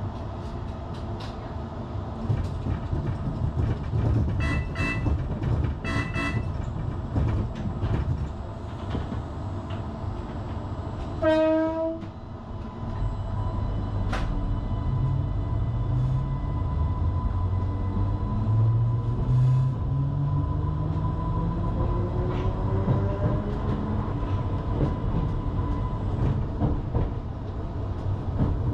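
Island Line Class 484 electric train: a few short beeps in the first seconds, a short horn blast about 11 seconds in, then a rising whine from its traction motors as it accelerates over the rail rumble.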